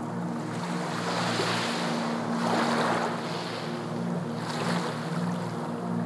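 Waves washing and surging, with a large swell about two to three seconds in and a smaller one near five seconds, over a steady low hum.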